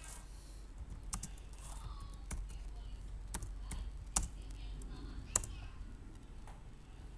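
Typing on a computer keyboard: irregular, scattered key clicks, with two louder ones about four and five seconds in.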